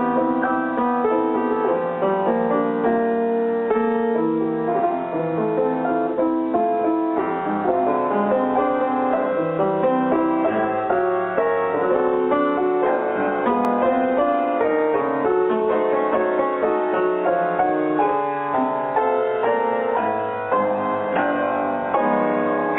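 Piano music: a continuous flow of notes and chords.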